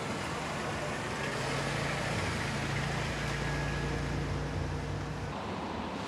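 Road traffic noise with a motor vehicle engine running nearby, a low steady hum that stops abruptly about five seconds in.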